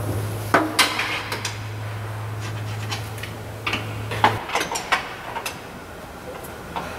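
Irregular metallic clinks and taps of wrenches working the upper control arm cam bolts during a front-end alignment. A low steady hum underneath stops about four seconds in.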